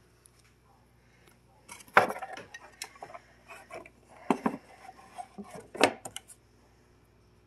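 Wooden sifter frames and the plywood vibration lid being handled: a run of irregular knocks and clatters of wood on wood, the sharpest about two seconds in and again near six seconds.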